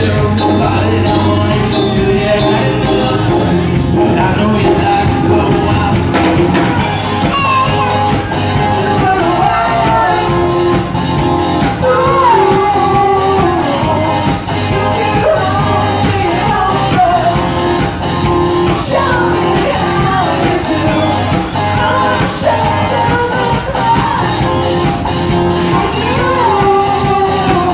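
A young girl singing lead into a microphone over a live rock band of electric guitar, bass and drum kit. The drums play only occasional hits at first, then a steady full beat comes in about seven seconds in.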